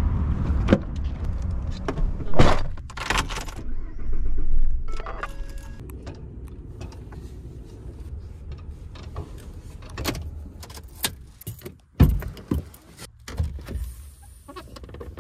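Handling sounds around a pickup truck: keys jangling and a string of sharp clicks and knocks from doors and latches, over a vehicle's low rumble that fades after the first few seconds.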